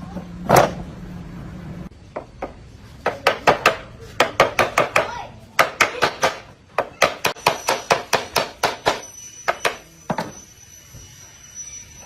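A single loud knock, then a fast run of sharp knocks at about four a second from about three seconds in, stopping about nine seconds in, with a few scattered knocks after. A steady low hum stops about two seconds in.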